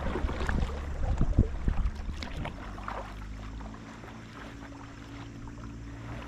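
Kayak paddle strokes: water splashing and dripping off the paddle blades in a quick cluster over the first couple of seconds, then dying down to quieter water sounds.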